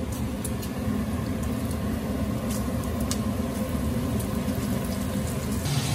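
Bacon frying in a skillet: a steady sizzle with a few small pops, over a steady low hum that grows stronger near the end.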